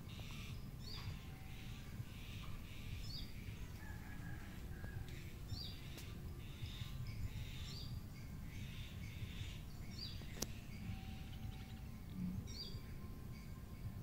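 Small birds chirping: short, sharp, high notes repeated every second or two, over a steady low background rumble, with a single sharp click about ten seconds in.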